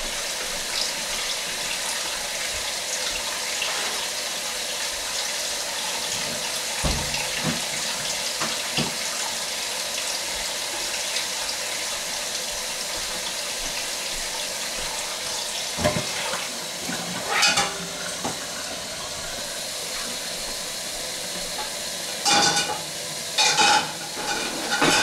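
Steady hiss of water running from a kitchen sink faucet, with a few knocks and clatters at the sink about a third of the way in, around two-thirds of the way in, and twice near the end.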